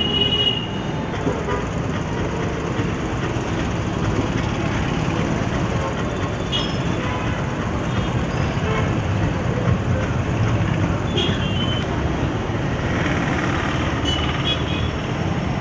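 Steady street traffic noise, with a few short vehicle horn toots scattered through it.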